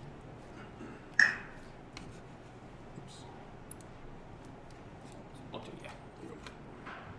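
Quiet room tone with a low hum and a few faint clicks, broken about a second in by one sharp knock with a short ringing tail.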